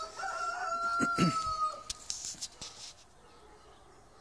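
A rooster crowing once: one long held call of about a second and a half that dips in pitch as it ends, followed by a few soft rustles.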